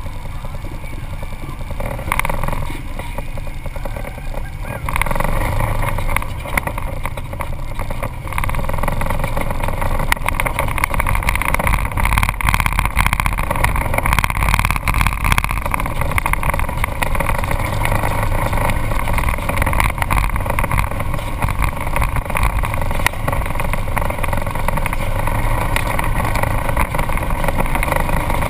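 Side-by-side UTV engine running as the vehicle drives a dirt trail, heard from a camera mounted on its hood; the engine gets louder about five seconds in and keeps running steadily under load.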